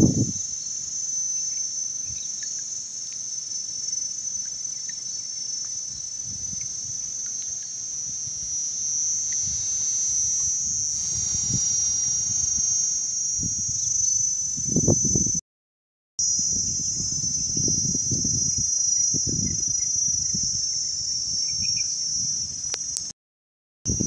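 A steady, high-pitched insect chorus from the mangroves, with low swishes of kayak paddle strokes in the water, mostly in the second half. The sound cuts out briefly twice.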